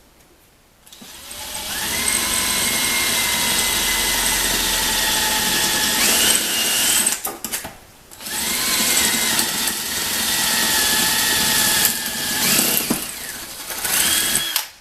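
Electric drill run twice, each time for about six seconds with a short pause between, drilling holes in a glove box latch part. The motor whine drops slightly while the bit cuts and rises in pitch near the end of each run.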